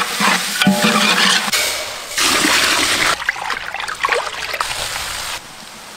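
Sliced onions sizzling in oil in a large aluminium pot while a metal ladle stirs and scrapes them, then wet, splashy squelching as a hand mixes a watery paste.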